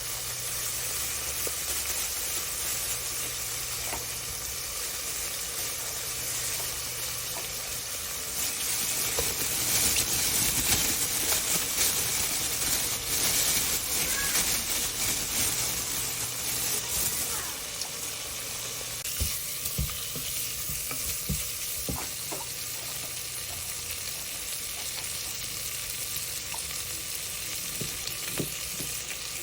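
Food sizzling in a pot while gochujang stew is being cooked, a steady hiss that swells louder for several seconds partway through. A few light utensil clicks come in the later part.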